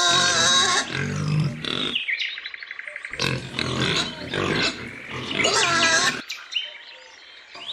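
Piglets squealing in high, wavering bursts with some low grunting. They fall quiet about six seconds in.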